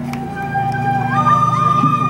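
Live instrumental music: long held melody notes over a steady low drone, with the melody moving to a higher note about a second in.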